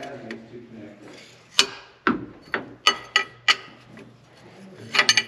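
Hand ratchet wrench on an extension clicking in short strokes as a bolt is turned on a tractor's power shift control valve: several sharp separate clicks, then a quick run of clicks near the end.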